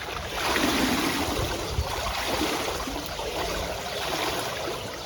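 Swimming pool water splashing and sloshing as a person moves through it, swelling about half a second in.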